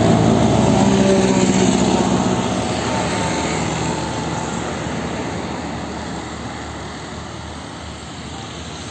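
Tour bus diesel engine running as the bus pulls away down the road, its sound fading gradually, with passing road traffic underneath.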